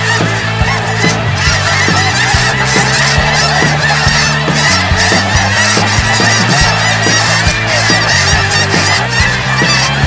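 Large flock of snow geese calling overhead: a loud, unbroken chorus of many overlapping honks.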